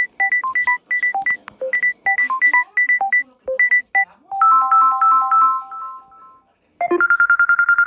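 Samsung Galaxy A12 ringtones playing. First comes a melody of short, bright, plinking notes, about five a second, ending on a few notes that ring on and fade out. Near the end the next ringtone starts: a fast run of the same high note repeated over and over.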